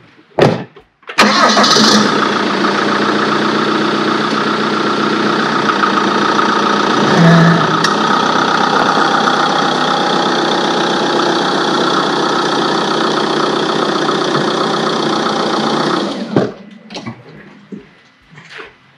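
A vehicle door shuts with a sharp knock. About a second later a Fiat Ducato–based motorhome's diesel engine starts and runs steadily while the vehicle is backed up a short way, then is switched off about sixteen seconds in.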